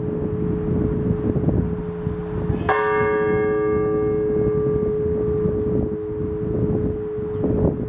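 Large Orthodox church bell struck once about a third of the way in, its many overtones ringing on and slowly dying away, with the hum of an earlier strike still sounding beneath. Heavy rumble of strong wind gusts on the microphone runs under the bell.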